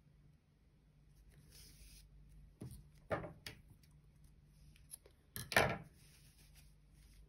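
Scissors snipping yarn: a few short sharp cuts and clicks, the loudest about five and a half seconds in, with soft rustling of the knitted fabric between them.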